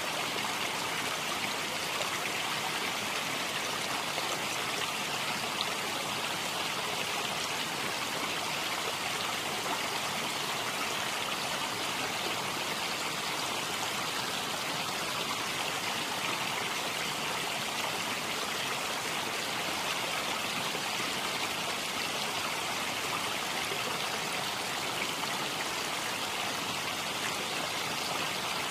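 Steady, unbroken rushing noise of running water.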